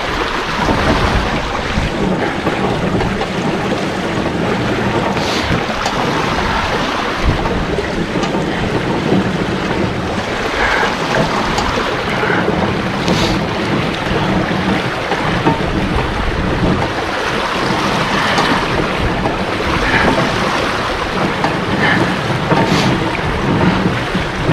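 Water rushing and splashing steadily through the race beneath a mill's water wheel, with a few faint knocks now and then.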